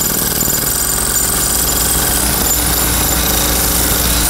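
Pneumatic jackhammer hammering without a break, breaking up reinforced concrete steps.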